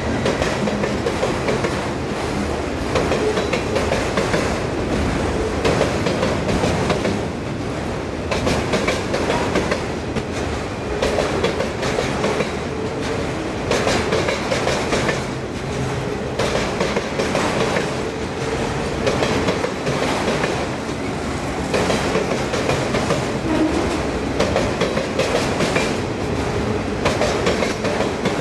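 Autorack freight cars rolling past at about 25 mph: steel wheels clicking over the rail joints in groups about every two seconds, over a steady rumble and rattle of the cars.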